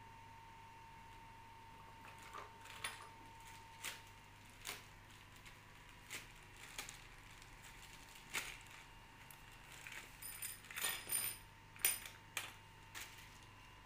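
Small metal tricycle hardware (bolts, nuts and steel rods) rustling in a plastic bag and clinking as it is set down on a glass tabletop: scattered clicks at first, then a quick flurry of ringing metallic clinks near the end. A faint steady high hum runs underneath.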